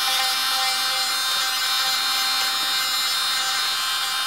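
Electric manicure drill with a diamond bit running steadily at about 15,000 rpm, its bit grinding the natural nail and lifting the cuticle.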